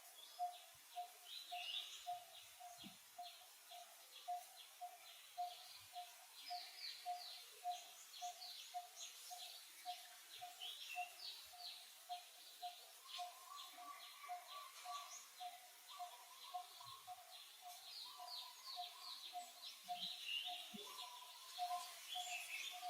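Birdsong in the wild: one bird repeats a single low note about twice a second, steady throughout, while others add scattered chirps and quick ticking trills in a higher pitch.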